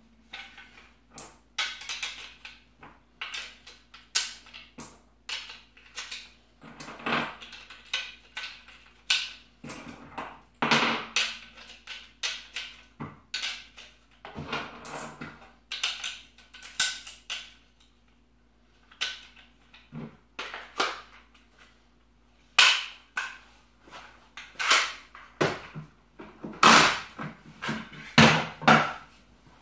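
Camo Brothers magazine speed loader pushing 5.56 cartridges into a 30-round rifle magazine: an irregular run of sharp plastic and metal clicks and clacks. The loudest clacks come near the end.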